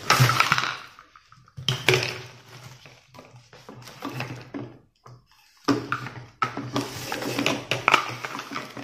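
Plastic handling noise from a canister vacuum cleaner being put together: clicks, knocks and rustling as its corrugated hose is worked into the inlet on the body. The noises come in irregular bursts with short pauses, about a second in and again about five seconds in.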